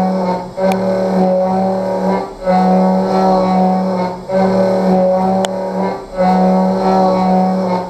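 5-flute MFH-Mini high-feed end mill cutting metal in a CNC mill: a loud, steady singing tone at the tooth-passing rate, breaking off briefly about every two seconds.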